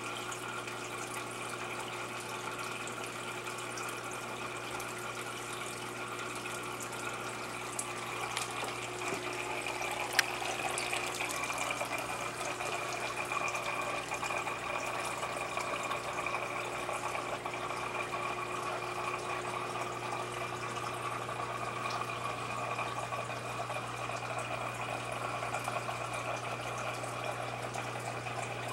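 Aquarium water circulating: a steady running, trickling water sound over a constant low pump hum, growing a little louder about eight seconds in, with a single sharp click about ten seconds in.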